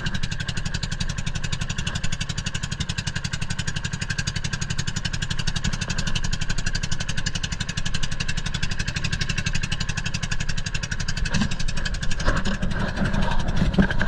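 Small engine running steadily with an even, rapid firing pulse. A few knocks and clatter come over it in the last few seconds.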